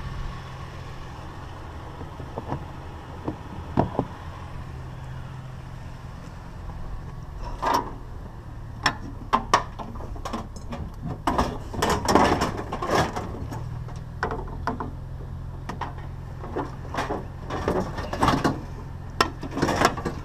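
Pickup truck engine idling with a steady low hum, with a couple of single knocks, then from about seven seconds in a run of knocks, clunks and rattles as scrapped metal appliances are shifted around in the truck bed.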